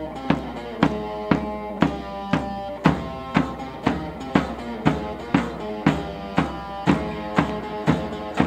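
A medieval bagpipe plays a melody over its steady drone, with a large rope-tensioned drum beaten with a stick about twice a second in a steady march-like beat.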